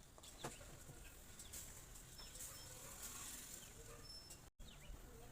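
Near silence: faint background noise with a light click about half a second in and a few faint, short bird chirps. The sound drops out completely for an instant near the end.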